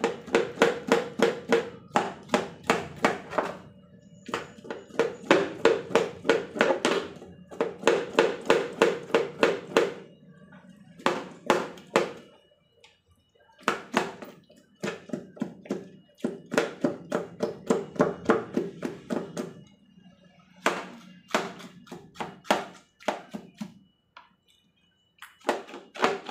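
A kitchen knife scraping the skin of a cow's snout on a plastic stool to clean off hair and scurf. It goes in quick strokes, about five a second, in runs of a few seconds with short pauses between them.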